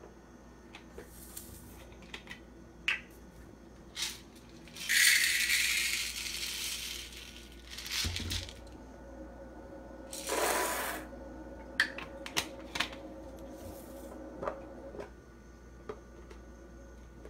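Dry popcorn kernels rattling as they are scooped with a plastic measuring scoop and poured into a silicone popcorn bowl: a loud rush of kernels about five seconds in, a shorter one about ten seconds in, and light clicks of handling between.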